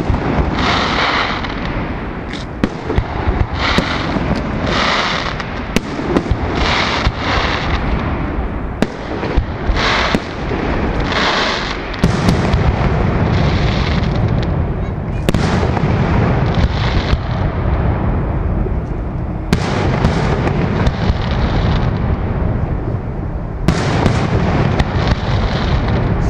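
Fireworks display: aerial shells bursting in a run of sharp bangs. About halfway through it turns into a dense low rumble of overlapping reports.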